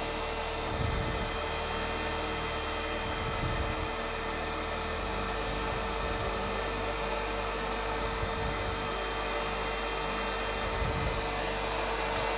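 Steady hum and hiss of a running electric blower, with a constant mid-pitched tone held throughout.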